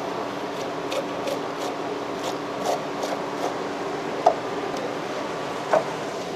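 Fish knife scraping along a wooden cutting board as a red sea bream fillet is skinned: a quick run of short scrapes, then two brief knocks, over a steady background hum.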